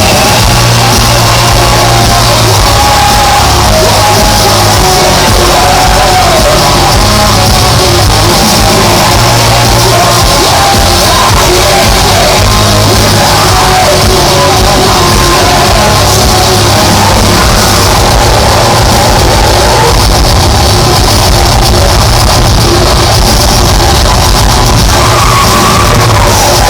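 Melodic death metal band playing live, with distorted guitars, drums and shouted vocals, loud and unbroken throughout.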